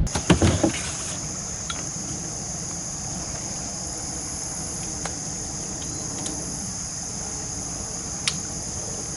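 Steady chorus of insects, a continuous high-pitched trill, over low outdoor background noise, with a few knocks in the first second.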